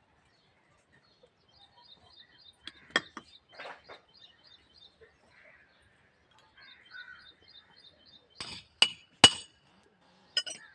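Scattered sharp metal-on-metal knocks and clinks of tools working a worn rickshaw wheel bearing out of its hub, the two loudest strikes coming close together about nine seconds in. A small bird chirps steadily behind.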